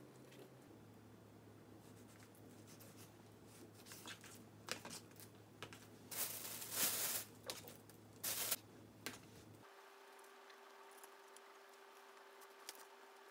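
Quiet food-prep handling: a kitchen knife slicing raw chicken breast on a paper towel over a plastic cutting board, with faint scrapes and clicks. About halfway through come two short bursts of paper crinkling, the loudest sounds.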